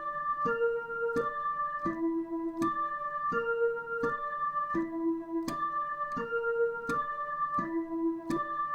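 Dutch ambulance siren sounding as a broken chord rather than a two-note wail. Separate clear notes step one after another about every 0.7 s, each starting sharply, cycling through the notes of a chord over and over.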